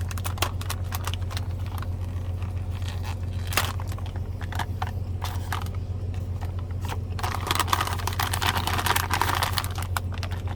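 Plastic drink-mix pouch being handled and torn open: crinkling and scattered clicks, with a longer stretch of tearing and rustling near the end, over a steady low hum.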